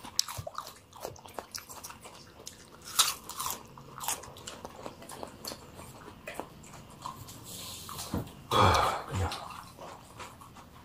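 Close-up crunching and chewing of raw cucumber and jicama pieces, with scattered crisp bites. A brief louder throat or mouth sound comes near the end.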